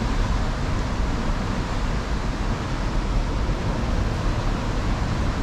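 Wind on the microphone and heavy surf washing against the rocks below, a steady rush with a strong low rumble and no distinct events.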